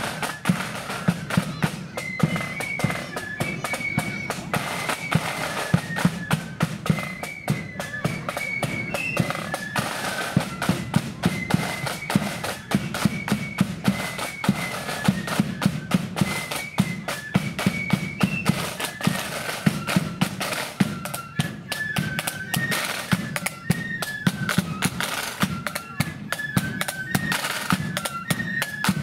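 Marching flute band playing a march tune: flutes carry the high melody over side drums and bass drum beating a steady marching rhythm.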